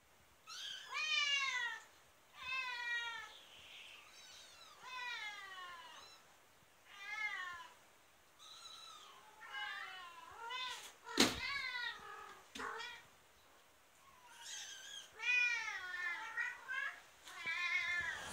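Domestic cats meowing over and over: about a dozen short calls, each falling in pitch. A sharp thump comes about eleven seconds in, and a lighter knock a second later, as a kitten falls from a shelf.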